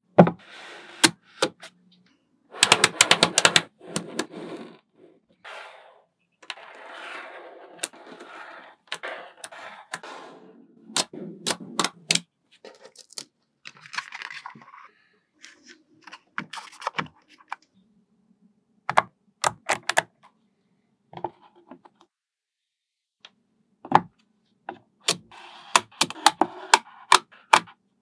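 Small magnetic balls clicking and snapping together as they are pressed and joined by hand: sharp single clicks, rapid clattering runs, and stretches of balls rustling and rattling against one another.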